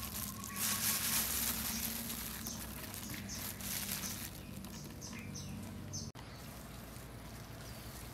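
Soft rustling of plastic food-prep gloves and a soft wrap being handled, with a few short bird chirps in the background.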